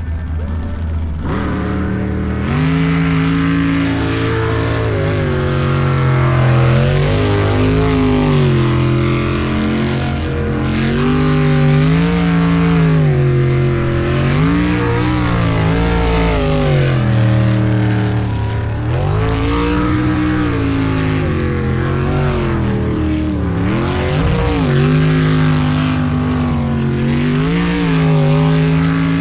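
Jet sprint boat engine running hard, revving up and backing off over and over, its pitch rising and falling many times.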